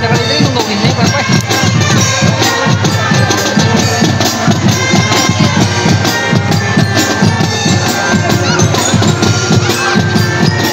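Marching band playing loudly: brass holding notes over a fast, steady beat of marching drums.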